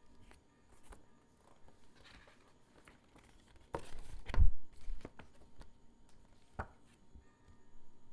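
Hands handling the contents of a merchandise package: scattered light taps, clicks and rustles, with a heavier knock and a deep thump about halfway through as something is set down or bumped.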